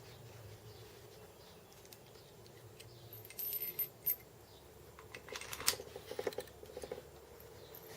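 Small loose metal parts such as nuts and bolts clinking and rattling as they are rummaged through by hand, with a brief metallic ring about three seconds in and a quick run of clinks around the middle.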